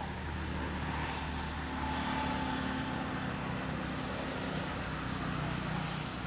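Steady low engine hum of a vehicle running.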